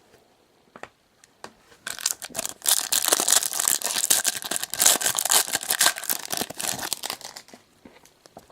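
Trading card pack wrapper being ripped open and crinkled, a couple of small clicks first, then about five seconds of dense tearing and crackling.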